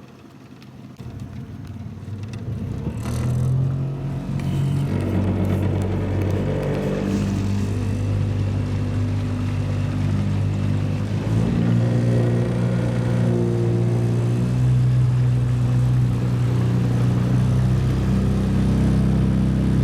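Boat motor starting to run and speeding up. It grows louder over the first few seconds, its pitch rises and shifts a couple of times as the throttle changes, then it runs steadily and loud.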